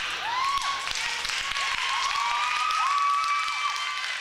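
Theatre audience applauding, a dense patter of many hands clapping, with several high rising-and-falling cries over the clapping.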